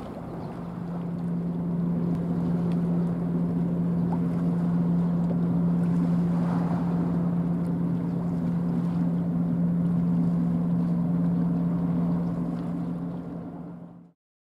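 Steady low drone of a boat's engine, with wind on the microphone. It swells over the first couple of seconds, holds level, and fades out near the end.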